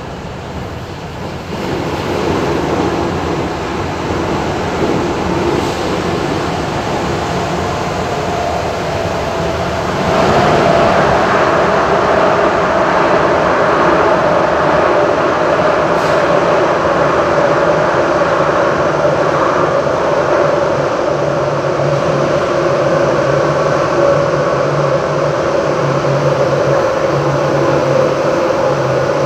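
Z20500 double-deck electric train heard from inside the carriage while running at speed: a steady rumble of wheels on rail with a steady whine. The noise gets louder about ten seconds in, as the train runs into a tunnel.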